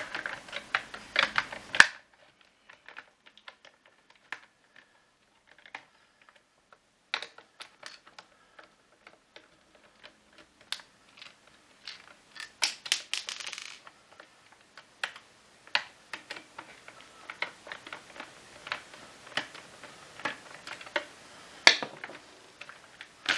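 Irregular light clicks and taps of a hand screwdriver and plastic parts as screws are undone from a Vax ONEPWR Edge vacuum floor head's plastic casing. There is a near-quiet pause early on, a denser run of clicking about halfway, and a sharp loud click near the end.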